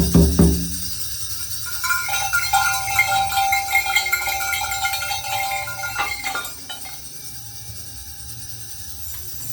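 Percussion sound effects: a quick run of low drum strokes at the very start, then a held, pitched tone with overtones from about two seconds in until it stops at about six and a half seconds.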